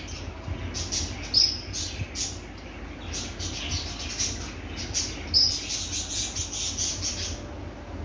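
Small birds chirping in short, high, repeated calls, with two louder chirps, one about a second and a half in and one about five and a half seconds in.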